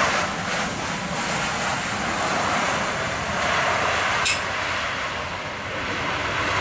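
Passenger jet airliner's engines heard as a steady rushing noise, with a single sharp click about four seconds in.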